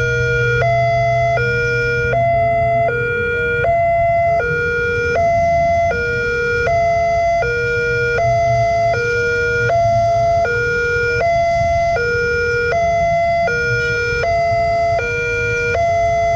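Railway level-crossing warning sirens sounding a steady, repeating two-tone alarm, a higher and a lower tone alternating over and over, which signals that a train is approaching and the barriers are down.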